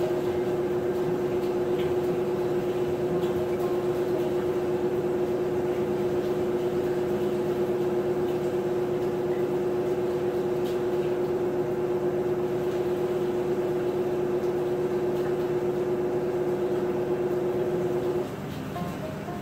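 Maytag top-load agitator washing machine running with a steady motor hum, which cuts off suddenly near the end.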